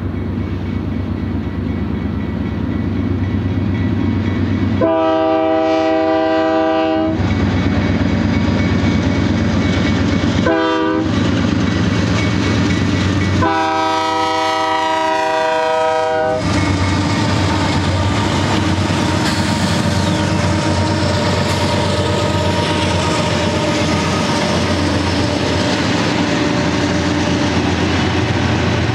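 Union Pacific GE C44AC diesel-electric freight locomotives passing under power, engines running, sounding a multi-note air horn three times: a long blast about five seconds in, a short one, then another long one, as the warning for a grade crossing. The double-stack container cars then roll by with steady wheel and rail noise.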